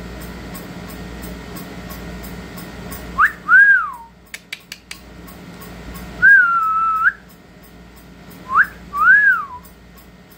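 A person whistling to a cat in three short calls. The first and last are a quick upward flick followed by a rising-and-falling note, and the middle one is a longer held note. A few sharp clicks come between the first and second calls.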